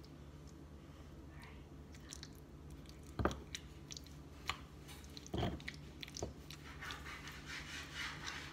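Avocado being mashed with a pestle in a stone molcajete: soft squishing and small clicks, with a few dull knocks of the pestle against the bowl, the two loudest about three and five seconds in.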